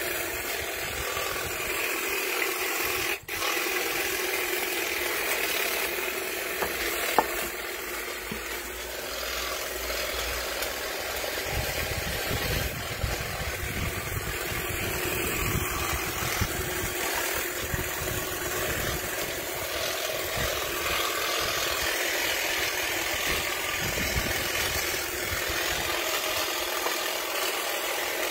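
Cordless hedge trimmer with 24-inch dual-action blades running steadily, its electric motor driving the reciprocating blades through leafy branches. There is a momentary break in the sound about three seconds in.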